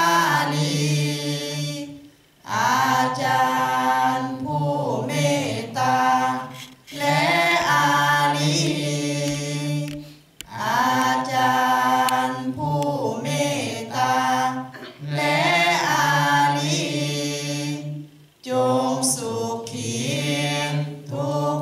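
A group of voices chanting Buddhist verses in unison on a steady reciting pitch. The phrases break for short breaths about every four seconds.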